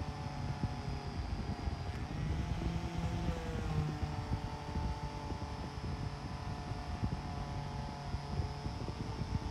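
Angle grinder running steadily with its abrasive disc grinding rust off a throwing knife pressed against it. The motor's pitch sags slightly about three seconds in under the load.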